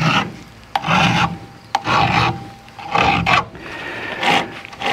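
Flat file rasping across a chainsaw chain's depth gauges (rakers), taking each one down with a single short stroke: about five strokes roughly a second apart, with light clicks between some of them.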